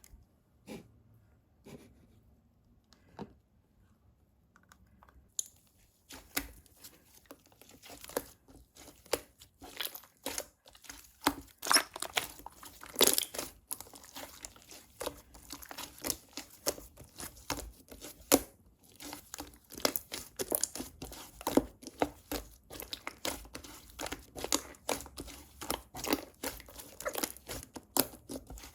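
Slime being pressed and stretched by hand, giving a few faint clicks at first and then, from about five seconds in, a dense run of crisp crackling and popping.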